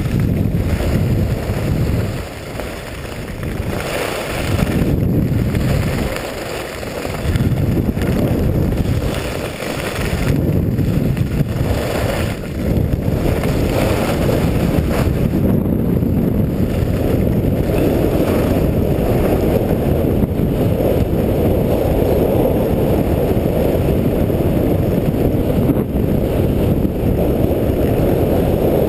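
Wind rushing over an action camera's microphone as a skier runs downhill, surging and easing at first, then a steady strong rush once speed builds.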